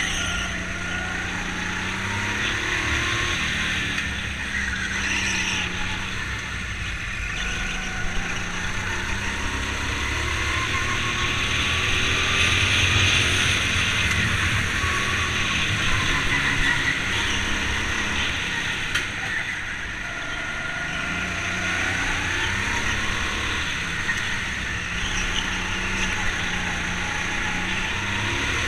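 Rental go-kart engine running under load through a lap, its pitch rising and falling again and again as the driver accelerates and lifts for the corners.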